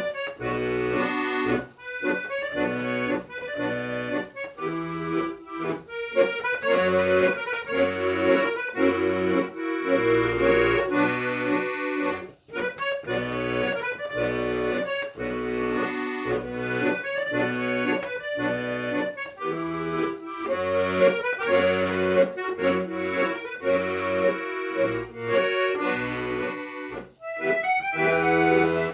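Accordion music: a melody over a rhythmic bass accompaniment.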